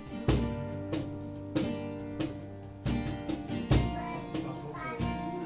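Background music: an acoustic guitar strumming slow chords, a chord struck roughly every second and left to ring.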